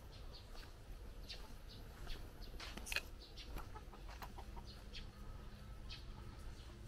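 Short bird calls scattered throughout, over a low steady outdoor rumble; a faint steady hum comes in near the end.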